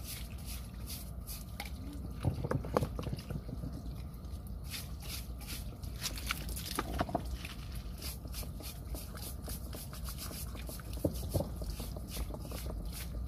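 Water poured onto a pile of wet rocks, trickling and splashing over the stone to rinse off sticky mud, with a few knocks and scrapes of a hand tool against the rocks.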